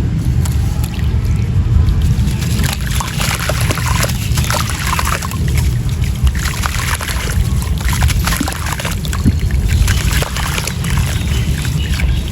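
Dry gritty sand-cement crumbling in water: a dense run of small crackles and trickles over a steady low rumble.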